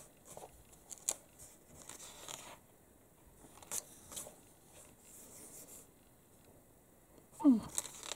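Glossy magazine pages being turned and handled: paper rustling and sliding, with a few short sharp flicks. Near the end comes a brief vocal sound falling in pitch, louder than the paper.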